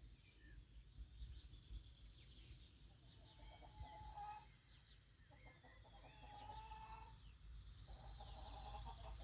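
Faint farmyard dawn chorus: many small birds chirping and, from about three seconds in, chickens clucking, over a steady low rumble.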